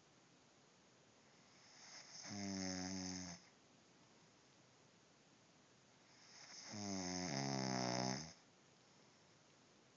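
A man snoring in his sleep: two snores about four seconds apart, the second longer and louder.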